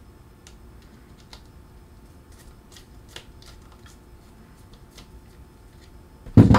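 Faint, irregular metal ticks as a screwdriver backs a long screw out of a Penn 113H Senator reel's side plate, followed near the end by one much louder knock.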